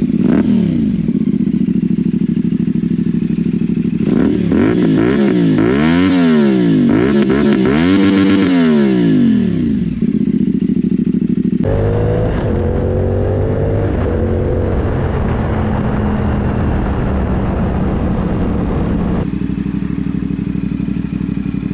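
CFMoto 450 parallel-twin engine running through a newly fitted aftermarket exhaust. It idles and is blipped several times, about four quick rises and falls in revs, between about four and ten seconds in. The sound changes abruptly after that, and the engine runs on steadily at low revs.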